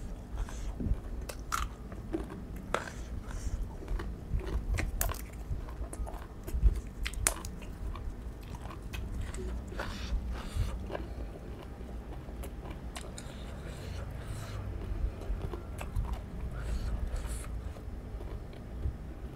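Close-up eating of raw shrimp salad with crisp raw vegetables: wet chewing and sharp, irregular crunches.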